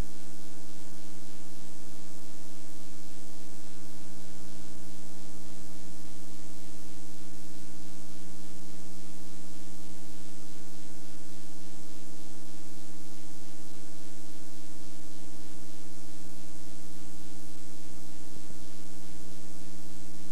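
A steady electrical buzz with hiss over it, unchanging, with no other sound standing out: a fault on the audio track of this taped TV broadcast.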